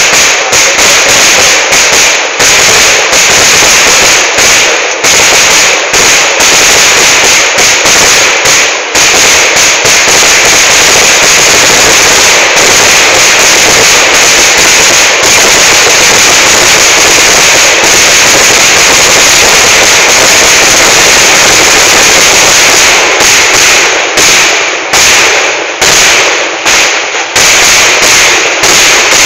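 Temple vedikkettu fireworks: firecrackers bursting in rapid succession, very loud. A string of separate cracks for the first several seconds merges into one unbroken barrage, which breaks up into separate cracks again near the end.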